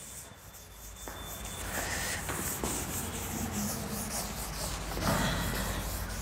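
Cloth duster rubbing chalk off a blackboard in repeated back-and-forth strokes, starting about a second in.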